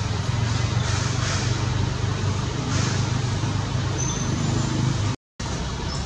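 Steady low drone of motor vehicle traffic, with an even background hiss. The sound cuts out completely for a moment about five seconds in.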